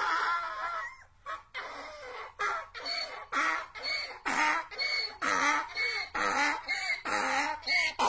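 Domestic donkey braying: a long drawn-out note that breaks about a second in into a rhythmic run of hee-haw cries, about two a second.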